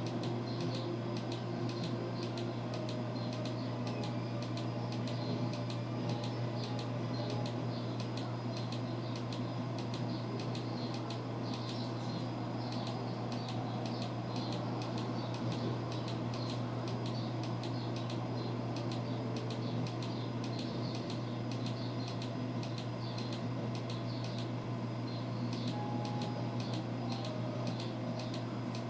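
A steady low hum with faint ticking, a few ticks a second.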